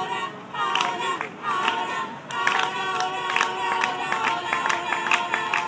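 Many voices of a group raised together in prayer and worship, overlapping one another, swelling into a denser chorus about two seconds in.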